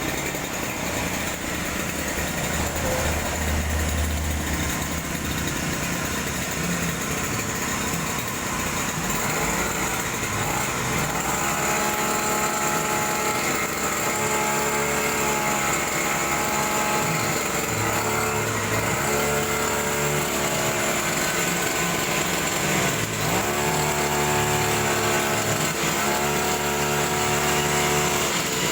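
Small petrol engine of a brush cutter converted into a rice-cutting machine, running continuously, its speed rising and falling repeatedly in the second half.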